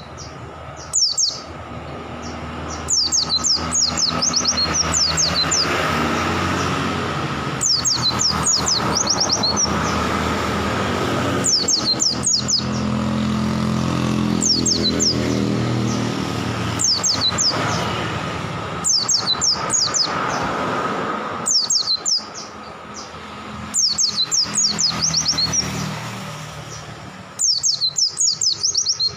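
Pleci (white-eye) singing in repeated bursts of quick, high chirping notes every two to four seconds. Under them a vehicle engine hums low in the background, loudest about halfway through.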